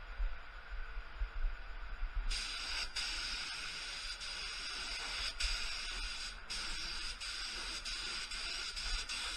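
Gravity-feed air spray gun hissing as it sprays base coat. The hiss opens up brighter about two seconds in and cuts out briefly a few times between passes.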